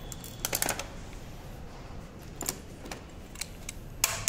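Scattered light metallic clicks and clinks of small breaker-mechanism parts and hand tools being handled on a steel workbench, with a louder metal clatter near the end.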